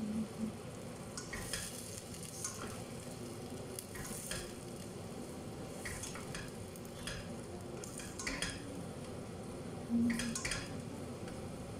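Slotted spatula stirring and scraping food in a metal pan over a gas flame, a run of short scrapes over a steady frying sizzle, the loudest scrape about ten seconds in.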